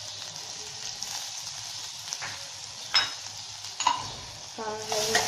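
Chopped garlic and ginger sizzling in hot oil in a pan as they are stirred, with a steady frying hiss. A couple of sharp taps come about three and four seconds in.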